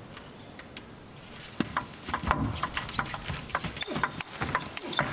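Table tennis rally: a celluloid-type ball clicks sharply off the bats and the table in quick, irregular succession, starting about a second and a half in after a short stretch of quiet hall ambience.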